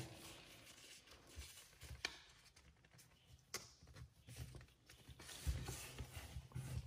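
A sheet of paper being folded and creased by hand on a desk pad: faint rustling and rubbing as fingers press the fold flat, with a couple of short ticks.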